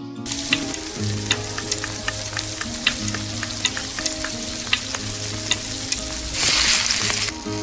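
Food sizzling as it fries in a hot pan, with sharp crackles and the clicks of stirring throughout. The sizzle surges louder for about a second near the end.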